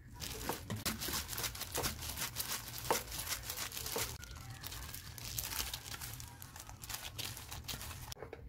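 Thin disposable plastic gloves crinkling and rustling as hands toss and squeeze seasoned soybean sprouts in a stainless steel bowl, a continuous crackly rustle with many small sharp clicks.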